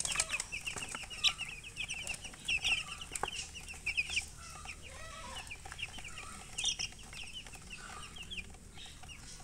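Baby chicks peeping, many short high calls in quick succession, with a hen's lower clucks in between.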